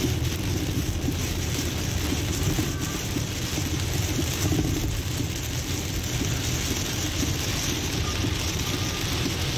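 Car driving through heavy rain, heard from inside the cabin: a steady road and engine rumble with the hiss of rain and spray on the windscreen.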